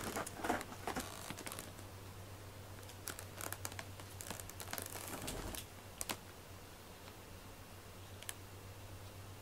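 Soft scattered clicks and rustles, bunched in the first second or so and again a few seconds in, with two single clicks later, over a low steady hum.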